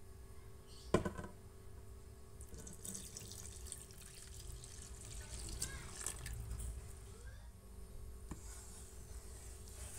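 Water poured from a plastic measuring jug into a metal pan of flour, splashing and gurgling for a few seconds. A single knock about a second in.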